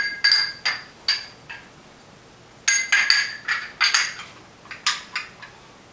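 Metal drum rack clamp and bar clinking and knocking together as they are handled and fitted, the sharp knocks ringing briefly; a cluster of clinks at the start, another starting about two and a half seconds in, and one last knock near the end.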